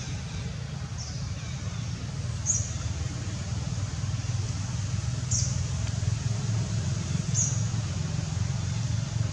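Steady low rumble, with four short high chirps spaced about two seconds apart.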